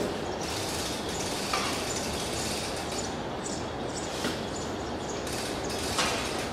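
A metal shovel scraping and digging into a heap of sand, a few short scrapes with the loudest near the end, over steady background noise.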